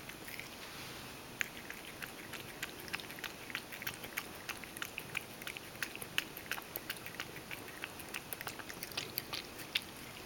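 Ragdoll cat lapping milk from a stainless steel bowl: a quick run of short, wet tongue clicks, several a second, starting about a second and a half in.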